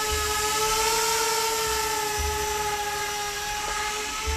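Z-2 bi-copter's two electric rotors hovering: a steady motor-and-propeller whine whose pitch wavers slightly as it holds position, growing a little fainter near the end.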